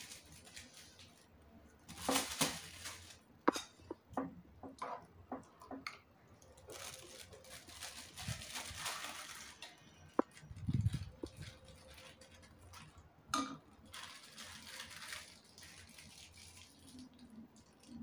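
Food-packing handling sounds: plastic bags rustling and short clicks and clinks of a spoon and containers, in scattered bursts, with a dull thump about eleven seconds in.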